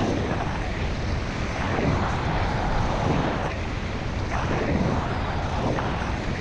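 Wind rushing over a GoPro Hero 5's microphone on a fast ski descent, with skis hissing and scraping over the snow in repeated swells as the skier turns.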